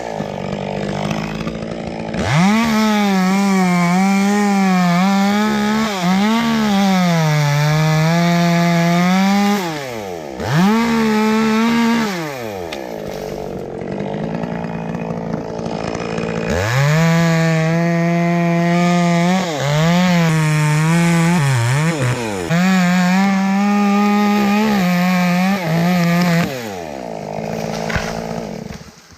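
Chainsaw cutting dead elm wood at full throttle, its engine pitch wavering and dipping as it bogs and recovers under load. There are two long cuts with a short burst between them, and the saw drops back to idle in the gap and near the end.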